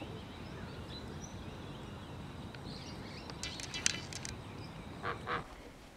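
Outdoor ambience of birds by a river: faint high chirps over a steady low rumble, a short harsh rattling call about three and a half seconds in, and two short calls near the end.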